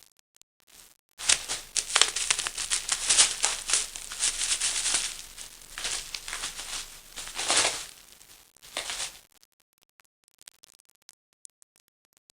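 Crinkling and rustling of a paper napkin bag lure moving over bubble wrap as a cat chases it, starting about a second in and stopping about nine seconds in.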